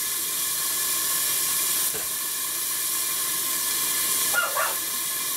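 Beef steaks sizzling in fat inside a lidded metal roaster on a hob giving off residual heat: a steady hiss of frying and steam.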